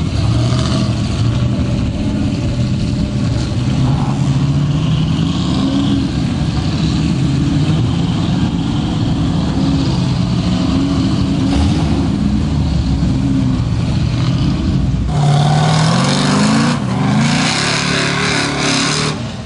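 Lifted 4x4 mud trucks' engines revving up and down as they push through water and mud. About fifteen seconds in, the sound cuts sharply to another truck revving hard, its pitch climbing in steps.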